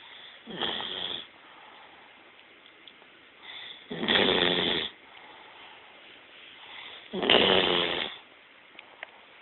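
Sleeping bloodhound snoring: three loud snores about three seconds apart, each about a second long.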